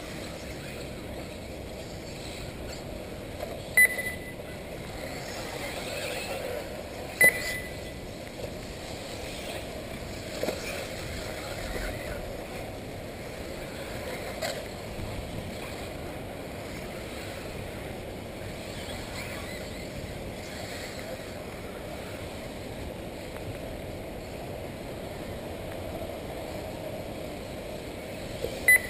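Three short, loud electronic beeps, about 4 s in, about 7 s in and near the end, like an RC race lap-timing system registering cars crossing the line, over steady race-track background noise from the electric 1/8-scale buggies.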